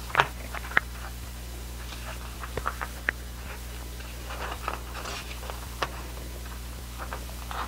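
Pages of a paper lyric booklet being turned and handled: soft paper rustles and short page flicks, the sharpest just after the start.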